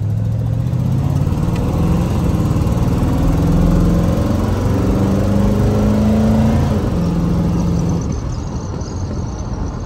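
The 1933 Ford Victoria's Ramjet 350 small-block V8, heard from inside the cabin, pulling the car under acceleration. Its pitch climbs steadily, drops abruptly about seven seconds in with a gear change, then runs on at a steadier pitch.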